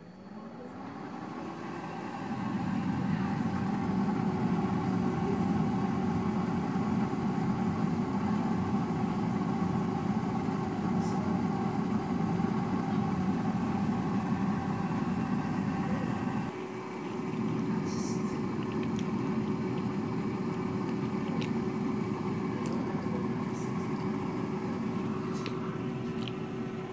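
Tidylife air fryer's fan motor starting up, its hum rising in pitch over the first second, then running steadily with a rush of circulating air.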